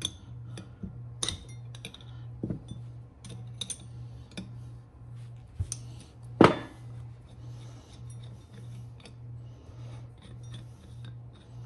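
Light metallic clicks and clinks of a wrench and fittings against a brake master cylinder as its port plugs are taken out, with one louder clack a little past halfway. A low hum pulses steadily underneath.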